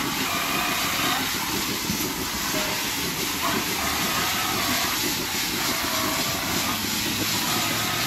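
Steady hissing of milking parlour equipment, with faint wavering higher tones over it.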